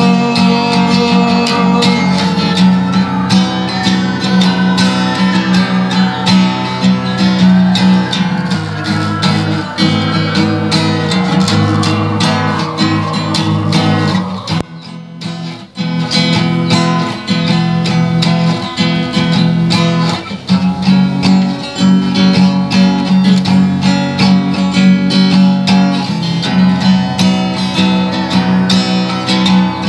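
Background music led by acoustic guitar, with a brief drop in level about halfway through.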